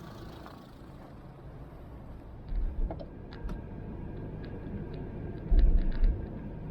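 Great Wall Hover H3 engine idling steadily, with two short bursts of low thumps and a few light clicks.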